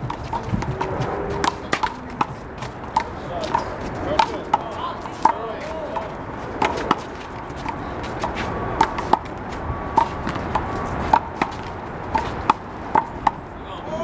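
Big blue rubber handball in play: many irregular sharp slaps as the ball is struck by hand, hits the painted wall and bounces on the asphalt court.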